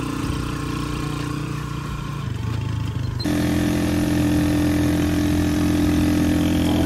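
A vehicle engine running steadily. About three seconds in, the sound cuts abruptly to a louder, even engine running at a steady pitch.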